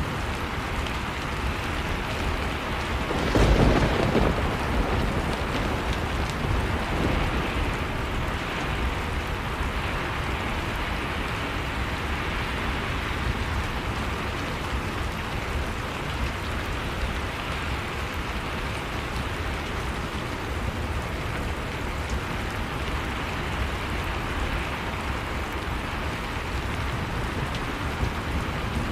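Heavy rain falling steadily, with a sudden loud clap of thunder about three and a half seconds in and a weaker rumble a few seconds later.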